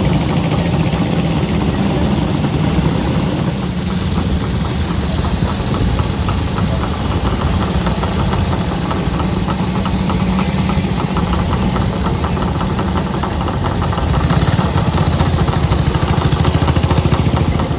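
Several vintage motorcycle engines idling and running at low speed together, a dense mix of uneven beating exhausts. The sound grows louder about three-quarters of the way through as bikes pass close by.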